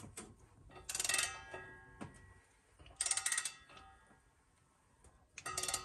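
Ratchet wrench clicking in three short runs of rapid, ringing clicks about two seconds apart, as the engine is turned over slowly by hand while the camshaft is degreed.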